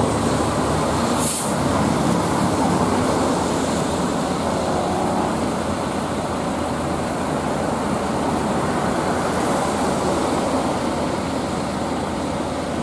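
Diesel engines of parked coach buses idling, a steady loud running sound, with a short hiss about a second in.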